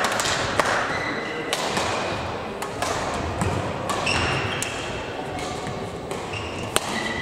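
Badminton sports-hall sound: sharp racket-on-shuttlecock hits from rallies on nearby courts at irregular intervals, about one a second, with short high squeaks of court shoes on the floor in between.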